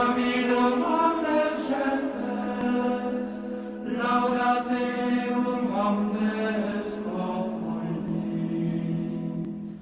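Chanted vocal music: long held notes over a steady drone, with a new phrase starting about four seconds in. It cuts off abruptly at the end.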